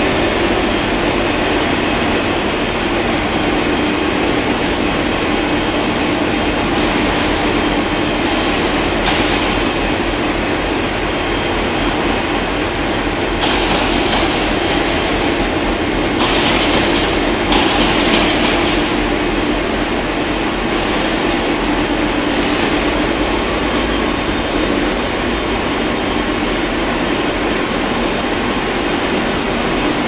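Optical fiber cable production machinery running: a loud, steady mechanical noise with a constant hum, broken by a few short hisses about halfway through.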